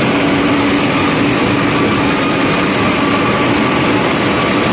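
Wood pellet mill machinery running: electric motors and sawdust conveyors make a loud, steady mechanical din with a constant hum.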